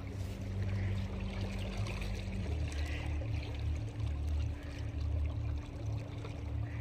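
Small boat moving on a lake under an electric boat motor: water trickling and splashing along the hull over a steady low motor hum, whose pitch shifts about two and a half seconds in.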